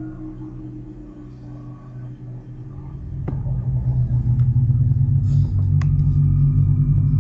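An unexplained deep drone made of several steady low tones, the sound the recording presents as coming from the sky. It grows louder about three to four seconds in, with a sharp click about three seconds in.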